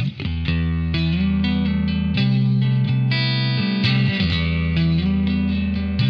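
Telecaster-style electric guitar played through a Bad Cat Cub valve combo amp: ringing chords and picked notes, with a short break just at the start and a couple of notes bent upward.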